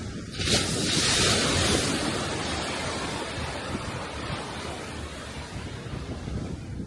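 Sea surf: a wave breaks about half a second in, a loud rush that slowly fades as it washes out, over a steady low rumble of wind on the microphone.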